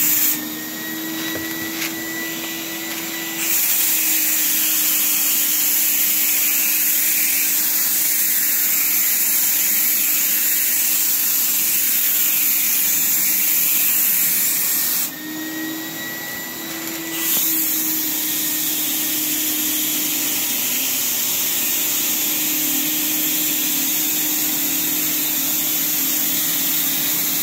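Paint spray gun spraying base coat: the rushing hiss of air and paint over the steady hum of the spray rig's air supply. The hiss drops away twice for a few seconds, about half a second in and about fifteen seconds in, while the hum keeps running.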